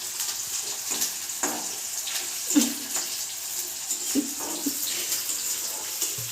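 Sliced onions sizzling in hot oil in a kadhai, frying toward golden brown, with a steady hiss and occasional clicks and scrapes of stirring.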